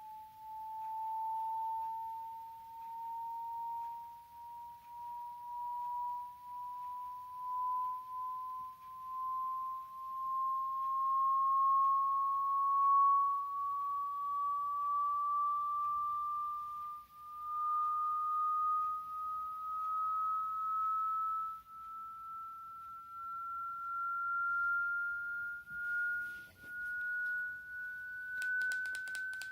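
Hearing-test sine tone sweeping slowly and steadily upward in pitch, a single pure whistle-like tone whose loudness wavers as it climbs.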